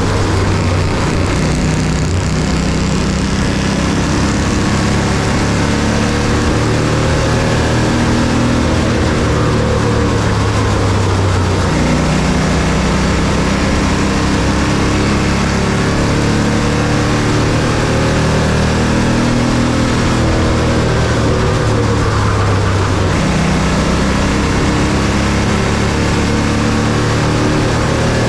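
Bandolero race car's single-cylinder Briggs & Stratton engine running loud and steady at racing speed, with small shifts in pitch.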